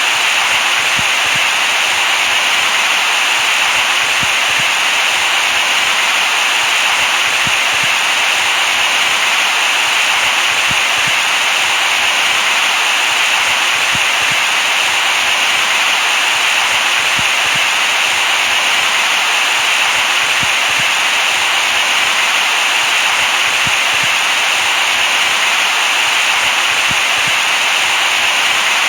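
Steady white noise: an even, unchanging hiss, brightest in the upper middle with little bass.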